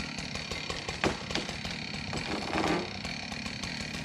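A small engine running steadily at idle, with a couple of sharp cracks about a second in.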